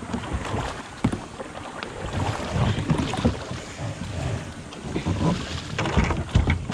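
Creek water sloshing and splashing against the plastic hulls of two kayaks as they shift side by side in shallow water, with a few hollow knocks: one about a second in and two near the end.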